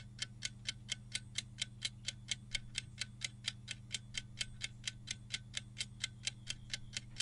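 Countdown-timer clock ticking sound effect: sharp, even ticks about four a second over a faint steady low hum.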